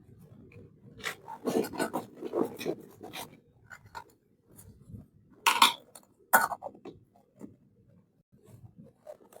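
Small toy kitchen pieces being handled. A run of quick rustles and clicks comes first, then two sharp clacks about a second apart, and faint taps near the end.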